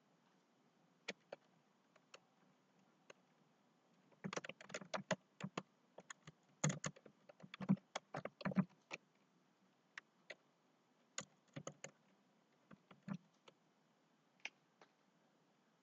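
Computer keyboard typing and clicking: sharp, irregular clicks, a few scattered ones at first, a dense run from about four to nine seconds in, then a few scattered ones again.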